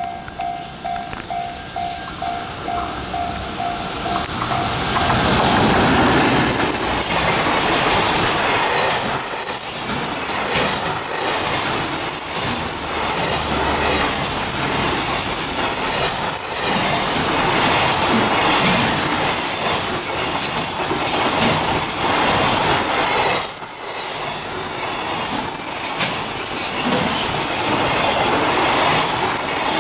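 EF210 electric locomotive hauling a long container freight train past close by: steady rumble and clatter of the wagons' wheels on the rails, with high wheel squeal at times. In the first few seconds a pulsing warning bell rings about three times a second as the train approaches. The noise jumps up about five seconds in as the train reaches the microphone, with a brief dip about three-quarters of the way through.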